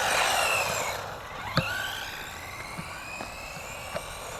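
Electric motors of GPToys S912 Luctan RC monster trucks whining, the pitch rising and falling with the throttle, louder in the first second. A sharp knock comes about a second and a half in, and a smaller one near the end.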